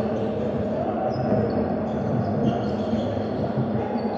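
Indoor basketball game: a steady murmur fills the gym hall, with a few short high squeaks, typical of sneakers on the hardwood court, and a basketball bouncing.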